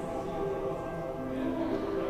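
Church music at Mass: long held chords, moving to new notes every second or so.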